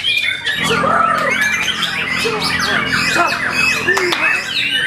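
Several white-rumped shamas (murai batu) singing at once in a songbird contest: a dense, continuous tangle of fast whistles, glides and chattering notes.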